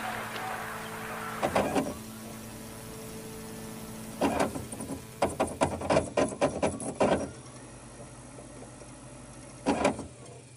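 A series of short mechanical clicks and clatters over a low steady hum. They come in clusters, with the busiest run in the middle and a last pair near the end.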